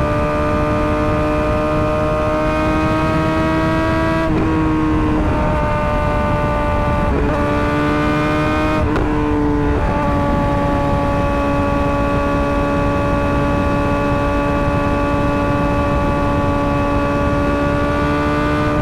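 Suzuki GSX-R600 inline-four running through an M4 GP slip-on exhaust at a steady high engine note. The pitch creeps up, then drops and shifts several times in quick succession like gear changes, then holds steady, over a constant rush of wind and road noise.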